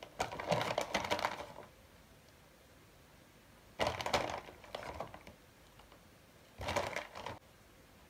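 Three short bursts of rapid clicking and rustling, each about a second long, from shredded mozzarella being scattered by hand onto a pizza on parchment paper.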